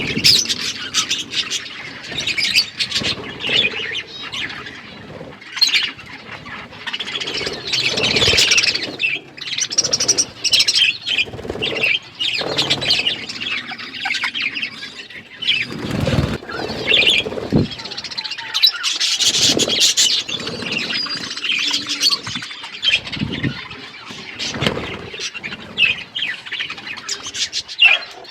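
Budgerigars chattering and chirping continuously in a busy flock warble, with a few louder thumps or flutters mixed in.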